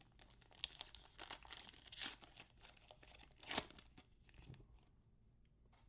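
Trading card pack wrapper being torn open and crinkled, with quick rustling strokes and a louder rip about three and a half seconds in, then fainter handling.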